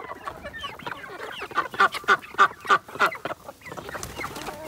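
Flock of hens and roosters calling all at once, many short clucks overlapping, loudest about two to three seconds in: an excited flock crowding in for feed.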